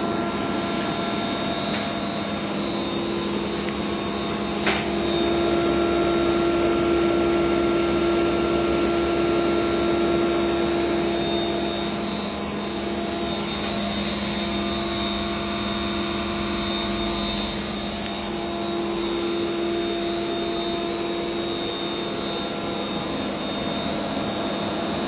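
Siemens Micromaster 440 frequency inverter running under test: a steady fan-like rush with a hum and a high, even whine. A single sharp click comes about five seconds in, and the level swells and dips slightly a few times.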